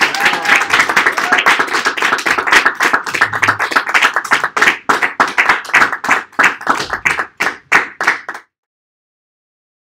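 A small audience applauding. Dense clapping thins into fewer, separate claps, then cuts off abruptly about eight seconds in.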